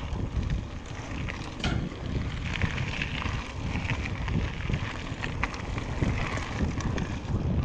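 Mountain bike riding along a singletrack trail, heard through the action camera's microphone: wind buffeting the mic as a steady low rumble, with scattered clicks and rattles from the tyres and the bike.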